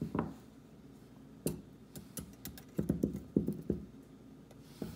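Light knocks and taps of a metal collar choker necklace being set down and handled on a cloth-covered table: a few scattered taps, then a quick run of them in the middle.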